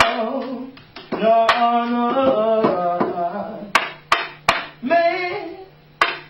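A person singing unaccompanied in two drawn-out melodic phrases, with several sharp claps falling between and across the phrases.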